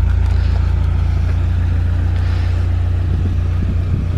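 Toyota 86's 2.0-litre flat-four boxer engine idling through a newly fitted Fujitsubo aftermarket exhaust, a steady low exhaust note.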